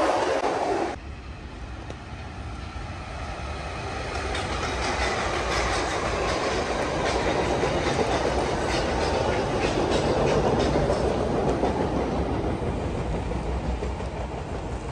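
A train passing on nearby tracks. A loud rush of wheels cuts off sharply about a second in, then a train's rumble with wheel clicks swells through the middle and fades toward the end.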